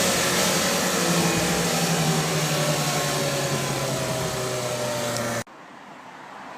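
Opel Kadett B's tuned 1.2 S OHV four-cylinder engine running on the road, its pitch slowly falling as the car slows. About five seconds in the sound cuts off abruptly, leaving a much quieter hum.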